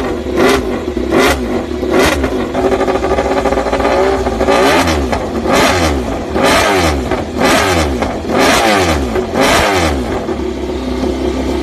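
Honda RC213V's V4 engine revved through a racing exhaust: quick repeated throttle blips, then several longer revs rising and falling in pitch, settling to a steady idle near the end.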